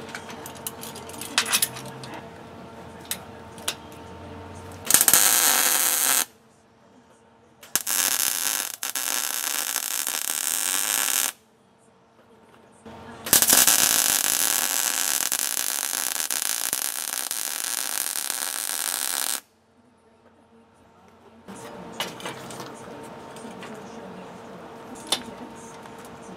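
Arc welding on scrap steel plate: three runs of steady welding-arc hiss, a short one about five seconds in, a longer one from about eight to eleven seconds, and the longest from about thirteen to nineteen seconds, with quiet pauses between. Before and after the welds there are only light clicks and taps.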